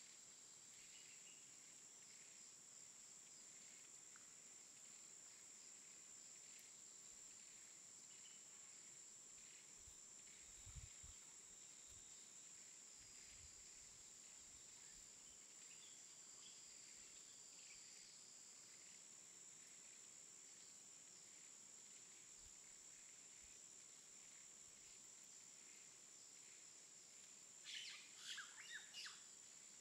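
Faint tropical outdoor ambience: a steady high-pitched insect drone with scattered faint bird chirps, and a brief flurry of bird calls near the end.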